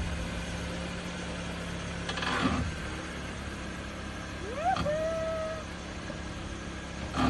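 Jeep Patriot SUV running as it rolls slowly forward, a steady low hum over the first two seconds. About halfway through there is a short tone that rises and then holds level for about a second.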